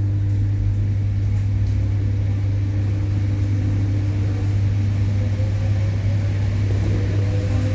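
ED9E electric multiple unit accelerating away from a stop: a steady low electrical hum from the traction equipment, with a faint whine that starts to rise in pitch near the end.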